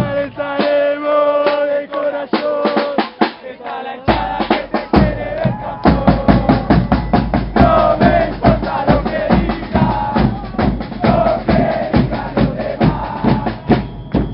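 A football supporters' drum section, with bass drums and snare drums beating a fast, steady rhythm while a crowd of fans chants along. The heavy bass drums come in about four seconds in.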